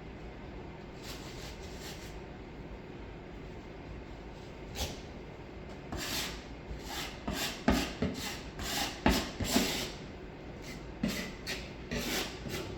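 Drywall knife scraping and pressing setting-type joint compound (speed mud) into a patched hole. After a stretch of faint steady background, a run of quick scraping strokes starts about halfway through, one or two a second.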